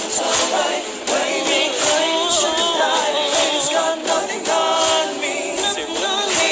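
Live pop performance by a male vocal group: sustained, layered sung vocals over a backing track with a steady beat.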